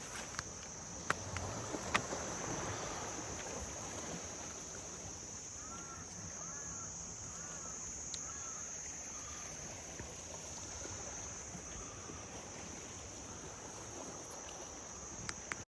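Tropical forest ambience: insects keep up a steady high-pitched drone while a bird calls a run of about six short rising-and-falling notes a little past the middle. A few light knocks can be heard early on and near the end.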